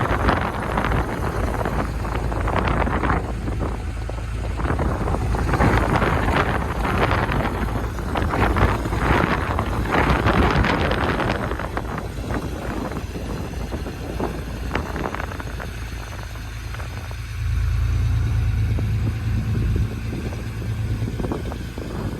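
1987 Porsche 930 Turbo's air-cooled turbocharged flat-six running while the car is driven, its sound swelling and easing every few seconds. Wind noise buffets the microphone throughout. A heavier low rumble comes in for a few seconds near the end.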